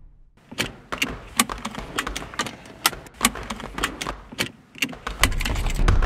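Seat belt latch plates clicking into their buckles: a quick series of sharp metallic clicks, about two or three a second. A low rumble comes in near the end.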